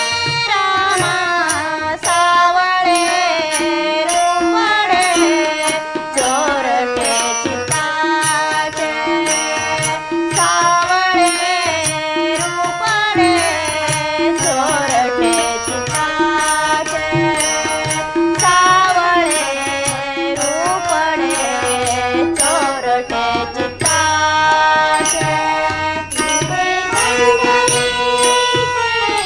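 Marathi devotional abhang music: a melody that glides in pitch over a steady, evenly paced percussion beat.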